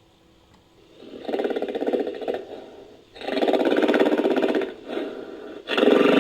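Sound-designed giant ape (Gigantopithecus) creature vocalizing: three loud, rough calls, each one to two seconds long, the first about a second in.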